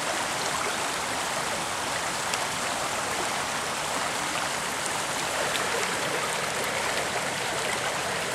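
Rain-swollen creek rushing steadily, with a few faint drip ticks now and then.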